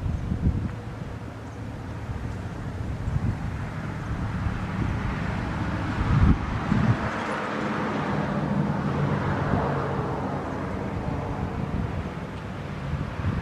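A vehicle passing on the road, its tyre and engine noise swelling in the middle and fading again, with wind buffeting the microphone and a low thump about six seconds in. No siren tone is heard.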